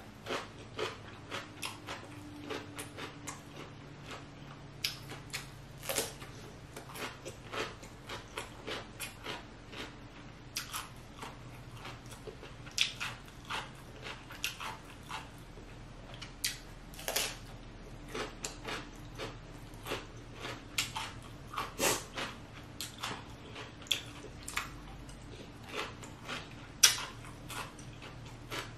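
Close-miked eating sounds: chewing with many short wet mouth clicks and smacks coming at an uneven pace, a few louder than the rest.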